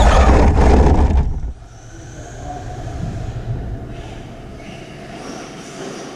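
Onboard sound of a Traxxas Slash 2WD RC truck driving over dirt: loud rumble and motor whine for about the first second. It then drops off sharply as the truck comes to a stop, leaving a quieter background with faint whining.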